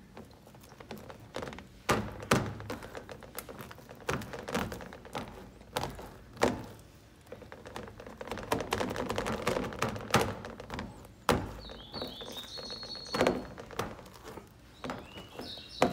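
Hands pressing and patting sticky chocolate crisped-rice cereal bars into a baking pan: irregular soft thumps, taps and crackles, with a few sharper knocks.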